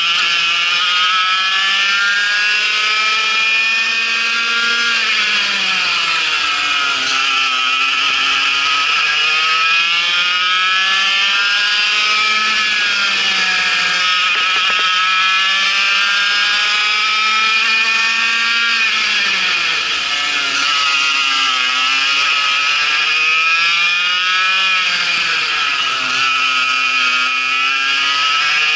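Vortex MiniRok 60 cc two-stroke kart engine heard onboard at racing speed, running at about 10,000 to 11,000 rpm. Its pitch climbs steadily on the straights and drops sharply several times as the kart brakes for corners, then climbs again.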